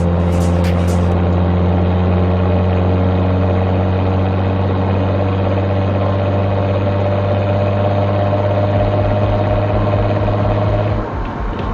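Audi S4 engine running under steady load while driving, a steady drone whose pitch creeps slowly up. Near the end the steady note drops away and turns uneven.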